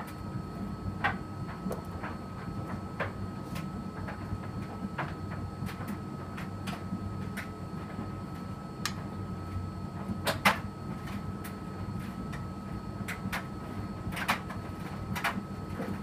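Electrolux front-loading washing machine running a 40°C cotton wash: a steady motor hum with a thin high whine, and irregular clicks and knocks as the load turns in the drum.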